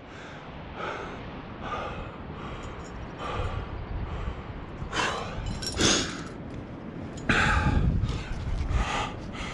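A rock climber breathing hard from the effort of climbing, about one breath a second, with louder exhales about halfway through and a longer, heavier one near the end.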